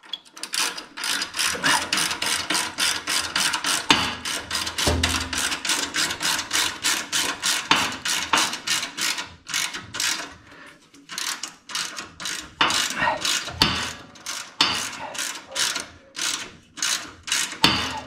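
Hand socket ratchet clicking rapidly as it is swung back and forth, tightening the bolt that fastens the battery ground cable to the steel chassis frame. The clicks run about three or four a second in runs, with a couple of short pauses.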